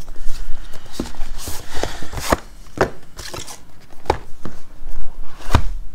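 Power bank's cardboard box being opened and handled: a series of sharp clicks and taps, about seven, with a brief sliding rustle of the packaging around two seconds in.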